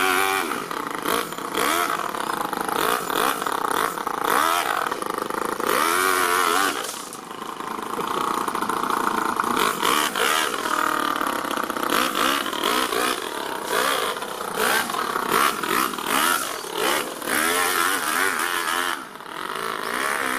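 Toyan FS-L200 two-cylinder four-stroke nitro model engine in an RC crawler running and revving, its pitch rising and falling again and again as the throttle is worked. It dips briefly twice, about a third of the way in and near the end.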